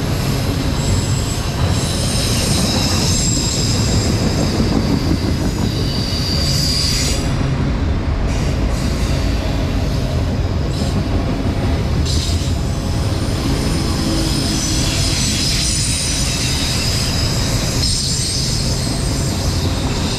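CSX freight train of autorack cars rolling past at close range: a loud, steady rumble of wheels on rail, with high squealing from the wheels on the curved track that comes and goes.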